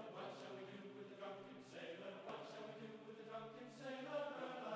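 Faint group singing in a low, chant-like style, with held notes and short breaks between phrases.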